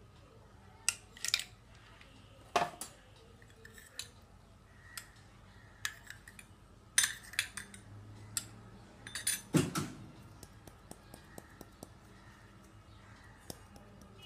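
Scattered sharp clinks and clicks of glass tumblers, ice cubes and a spoon, with a heavier knock a little before ten seconds in and a run of faint small ticks after it.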